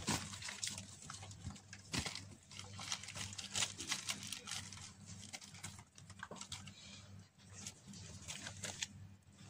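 Persian and Himalayan kittens scrambling and pouncing over plastic-wrapped boxes and bubble wrap: irregular rustling and crinkling with sharp little clicks and knocks. A steady low hum runs underneath.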